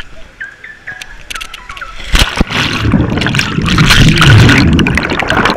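A plunge into a swimming pool about two seconds in, then loud underwater bubbling and rushing water heard through a submerged action camera.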